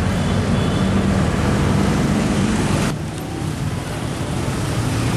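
Roadside traffic noise: a steady rumble of passing vehicles, which drops abruptly to a slightly quieter, similar background about three seconds in.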